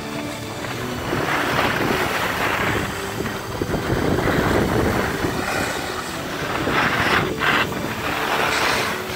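Skis sliding and scraping over packed snow, the hiss swelling and fading with each turn, mixed with wind on the microphone.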